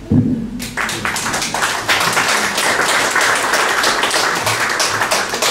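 Audience applauding: many hands clapping in a dense, even patter that starts about half a second in and keeps going.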